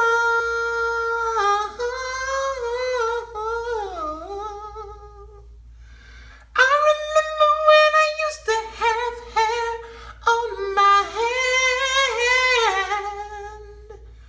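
A man singing a cappella in a high, wailing voice. A long held note slides down in pitch, and after a short break a second phrase of wavering held notes follows.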